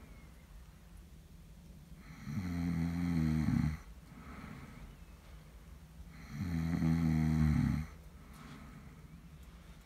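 A sleeping person snoring: two long, loud, rasping snores on the in-breath about four seconds apart, each followed by a quieter breathy exhale.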